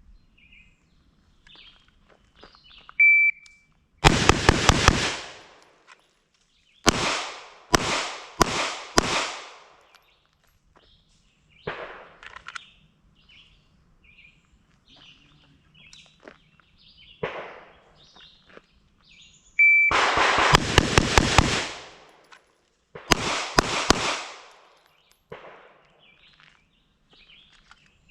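Two drill strings of carbine and pistol gunfire, each started by a short, high electronic beep of a shot timer. After each beep comes a fast run of shots with no pause, then a few slower separate shots a second or so apart. The second string starts about twenty seconds in.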